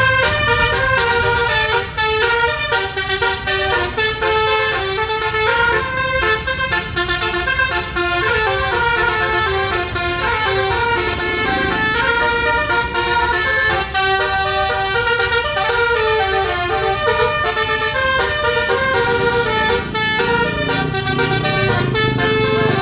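A bus's twelve-trumpet telolet basuri horn playing a melody, a quick run of short notes stepping from pitch to pitch without a break.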